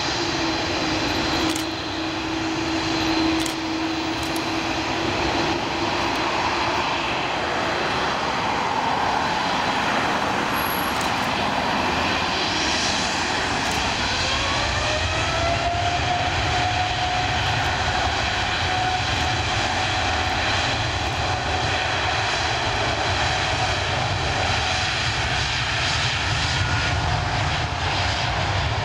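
Airliner engine noise, steady throughout, with a whine that rises in pitch about halfway through and then holds.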